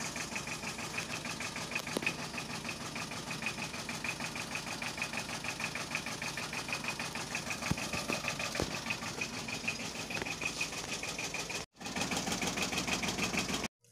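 Tata Ace's small diesel engine idling with an even, rhythmic beat, run after a coolant refill to circulate the coolant before the air is bled from the system.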